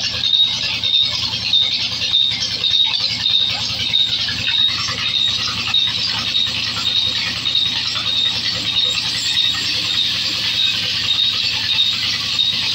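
Large band saw running and cutting a block of wood: a steady high-pitched squeal over a low hum, with a sharp high tone pulsing about twice a second.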